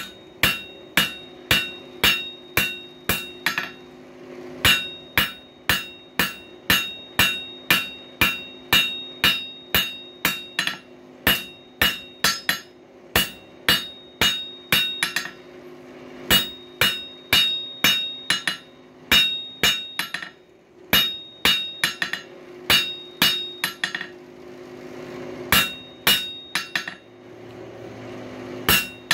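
Blacksmith's hammer striking hot coil-spring steel on an anvil, about two blows a second in runs with short pauses, each blow ringing with a high clear tone, over a steady low hum.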